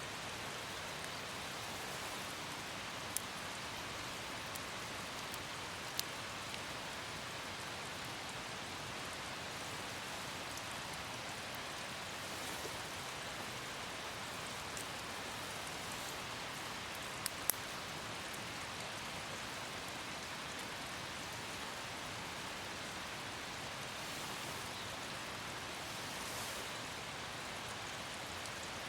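Light rain falling steadily, an even hiss of drizzle with a few sharp ticks of single drops, twice close together near the middle.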